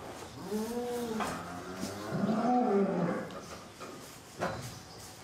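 Holstein cow lowing twice during calving, two drawn-out calls of about a second each that rise and fall in pitch, while the calf is being delivered.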